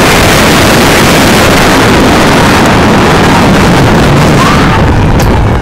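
Heavy wind buffeting on the microphone of a camera riding in a vehicle that is moving alongside a harness race, with engine and road rumble underneath, loud and steady. Near the end the noise eases a little.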